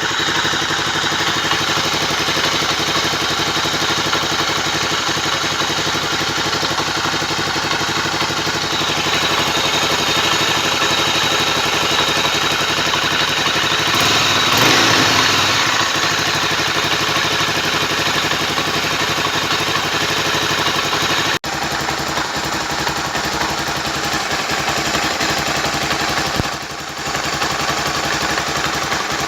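Honda Tornado motorcycle's single-cylinder engine running at idle, swelling briefly about halfway through. The mechanical noise in it was traced to the clutch basket.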